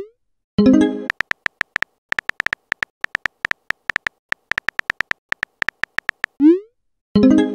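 Texting-app sound effects: quick keyboard tap clicks, about four or five a second, as a message is typed, and a short rising swoosh as a message is sent about six and a half seconds in. A brief tone sounds as a message bubble appears, about half a second in and again near the end.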